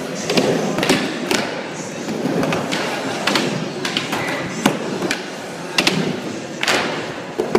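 Skateboard wheels rolling on a smooth concrete floor, broken by several sharp clacks and thuds as the board hits and lands, with a short metal rail grind about four seconds in.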